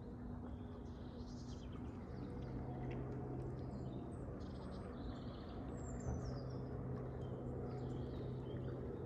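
Small birds chirping and calling in short bursts, over a steady low hum and a low rumble.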